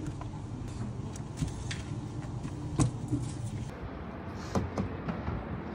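Cafe counter noise: a few sharp knocks and clatter over a low hum, then about four seconds in it gives way to steady outdoor street noise with light traffic.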